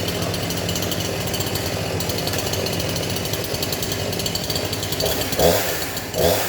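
Two-stroke chainsaw engine running at idle, then revved up twice in quick succession near the end.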